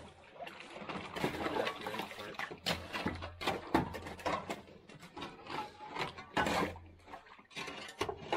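Ice being broken up and stirred in a galvanized stock tank: water sloshing and splashing with many sharp knocks and clinks of ice chunks against the metal tank.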